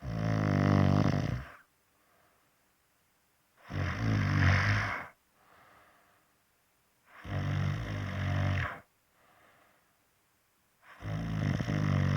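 Loud, low-pitched snoring: four long snores, about one every three and a half seconds, each followed by a faint short breath.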